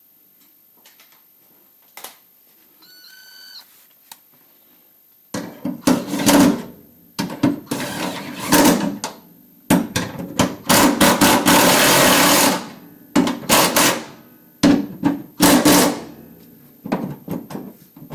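A handheld power tool run in a series of short, loud bursts, with one longer run of about two seconds in the middle. Before it starts there is a quiet stretch with a single click and a brief squeak.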